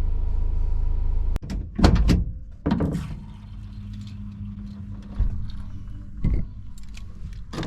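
A car's steady low engine drone cuts off abruptly, followed by a few loud thumps and knocks, with smaller knocks later.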